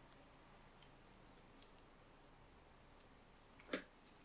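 Near silence broken by a few faint clicks, the sharpest near the end, from scissors snipping off a small piece of ribbon.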